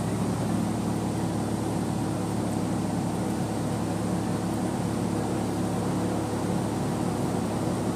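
Toyota Land Cruiser Prado TZ engine idling steadily, warming up after a morning start, inside an enclosed garage.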